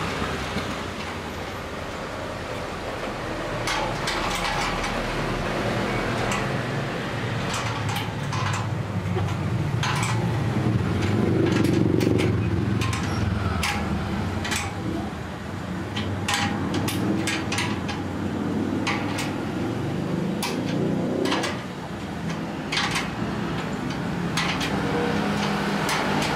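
Irregular knocks and clanks of parts being handled and fitted together while assembling a sewing-machine table and stand, over a steady low rumble of traffic.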